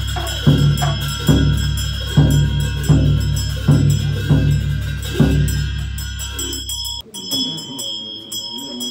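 Music with a heavy bass beat about every three-quarters of a second. It cuts off suddenly about seven seconds in, and lighter music with ringing, bell-like tones follows.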